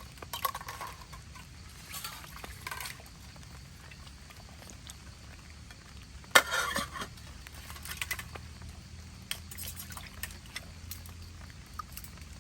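Camp cooking: a utensil clinking and scraping in a pot of liquid, a few short strokes with a sharper clink about six seconds in, over a steady low background noise.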